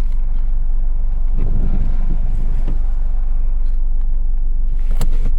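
Car engine idling, heard from inside the cabin as a steady low hum. The owner says the engine has a blown head gasket. A sharp click comes near the end.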